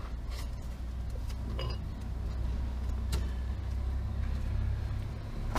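A few light clicks and knocks from brake parts and tools being handled on the motorcycle's rear brake, over a steady low rumble.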